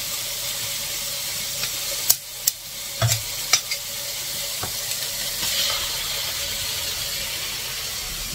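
Diced chicken breast sizzling steadily in hot oil in a frying pan, with a few sharp clicks and knocks of handling between about two and five seconds in, and a brief brighter burst of sizzle a little past halfway.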